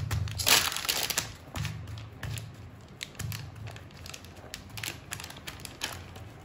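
Hands pressing and patting a ball of dough flat on an oiled plastic sheet, making irregular light taps and plastic crinkles. The loudest crinkle comes about half a second in.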